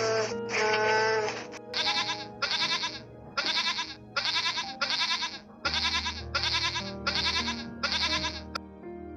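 Young goat bleating in a rapid series of short, quavering calls, about two a second, after two longer wavering calls in the first second and a half. Background music with sustained low notes plays underneath.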